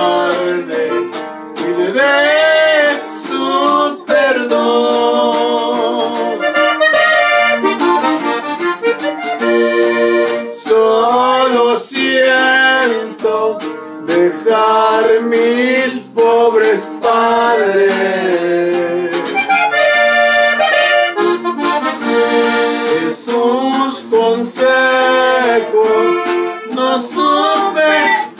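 Red diatonic button accordion playing a norteño melody with quick runs and trills, a guitar strumming along beneath it.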